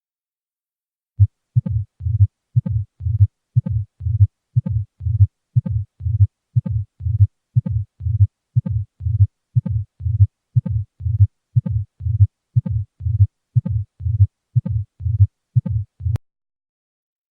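Recorded heart sounds: an even rhythm of low thumps, about two a second, starting about a second in and stopping near the end.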